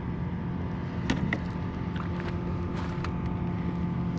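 A steady low hum with a fainter higher whine, broken by a few light clicks and taps about one, two and three seconds in.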